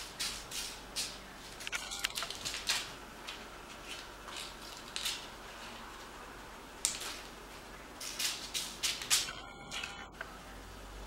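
Crumpled ball of tape crinkling and skittering across a tile floor as a cat bats it and picks it up, in irregular bunches of short crinkles with brief pauses between.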